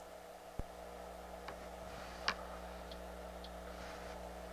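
A few small clicks as an oscilloscope's control knob is turned, the loudest a little past two seconds in, over a faint steady low hum from the bench equipment.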